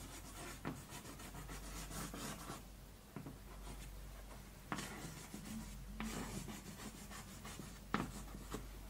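Chalk writing on a blackboard: faint scratching strokes, with a few sharp taps as the chalk strikes the board.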